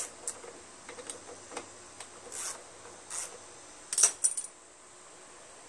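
Metal hand tools clinking and scraping as a 10 mm wrench is handled on the engine, a scatter of light clicks with a louder metallic clatter and brief ringing about four seconds in.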